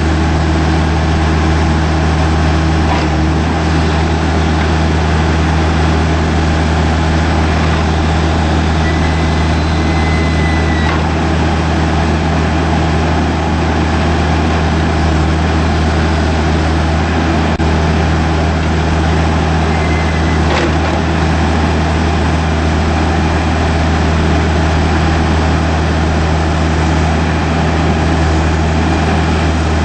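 John Deere 310J backhoe loader's four-cylinder diesel engine running at a steady speed, with no revving. Two brief faint high whistles come in, about nine and twenty seconds in.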